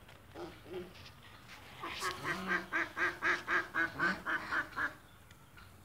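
A duck quacking in a quick, even run of about fifteen quacks, some five a second, lasting about three seconds.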